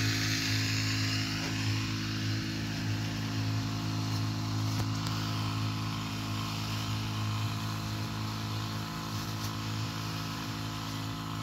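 Small petrol engine of a motorized crop sprayer running at a steady speed, with a steady hiss over it.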